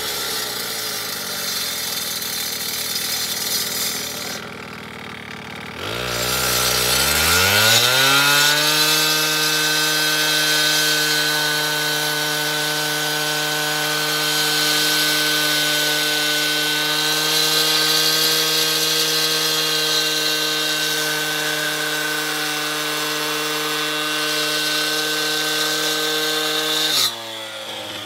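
Gas-powered handheld cut-off saw running, then revving up about six seconds in and holding a steady high engine pitch while its blade wet-cuts through a concrete curb with water fed onto it. Near the end the throttle is released and the engine pitch drops off suddenly.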